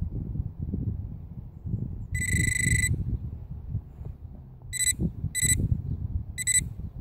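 Handheld metal-detecting pinpointer beeping at a buried target inside a clod of earth: one long beep about two seconds in, then several short beeps as the probe tip is moved against the clod, a sign that metal is inside.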